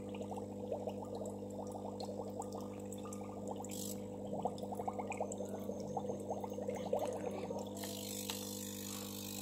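Venus Aqua AP208 aquarium air pump humming steadily while the air from its tubes bubbles up through the water of a fish bowl in a quick, continuous patter of small bubbles.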